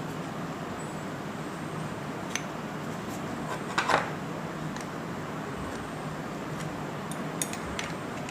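Light metallic clicks and clinks of metal tool parts being handled, a few scattered and the loudest cluster about four seconds in, over a steady faint hiss.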